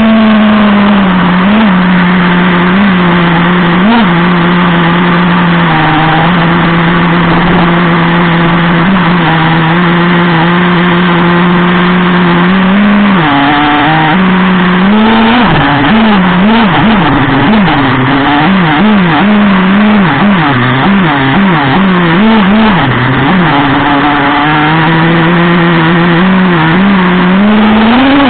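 Traxxas Revo 3.3 nitro RC truck's two-stroke glow engine running loud and close to a camera mounted on the truck. It holds a steady pitch for the first dozen seconds, then the throttle is blipped up and down rapidly for about ten seconds, before it settles steady again and revs up near the end.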